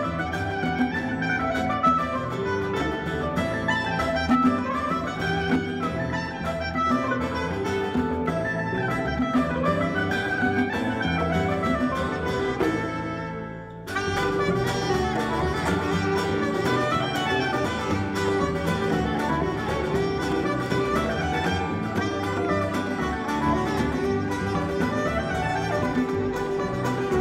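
Live Irish reel played on electric mandolin with band backing, dipping briefly about halfway through before the tune carries on, with a soprano saxophone playing the melody near the end.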